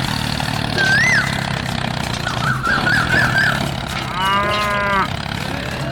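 A cow mooing once, about four seconds in, over a steady low motor hum, with short high chirps earlier.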